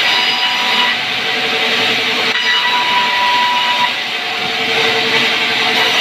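Large sawmill band saw running, a steady loud rush of noise with a high whine held through it.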